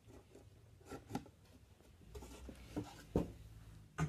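A wooden drawer being handled and slid back into a chest of drawers: light scraping with a few knocks, the sharpest about three seconds in. The drawer is a tight fit, with folded cardboard packed in beside its runners.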